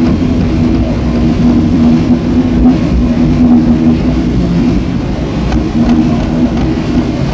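Abstract experimental electronic noise music from a cassette: a dense, loud low rumble under a steady low hum-like tone that drops out and comes back a few times.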